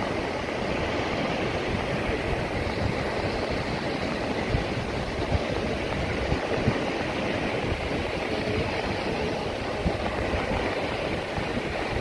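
Small waves breaking and washing up onto a sandy beach: a steady rush of surf with a low rumble beneath it.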